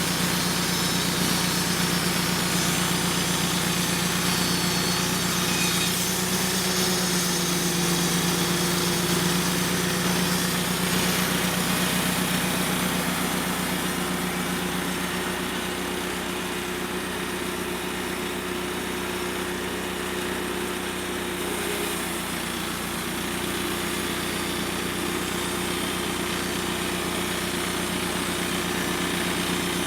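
Portable sawmill's engine running steadily at one even pitch, easing slightly in loudness around the middle.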